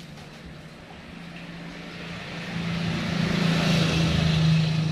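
A motor vehicle's engine going by, its steady hum and road noise swelling over a few seconds and then easing off.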